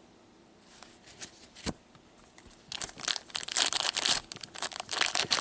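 Crinkling and tearing of a hockey card pack wrapper being handled, after a few light clicks. The crinkling starts about two and a half seconds in and grows loud and dense.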